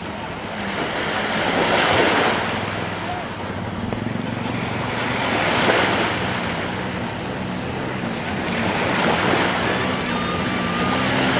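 Sea waves breaking and washing up the beach, the rush swelling about every three to four seconds, with wind on the microphone.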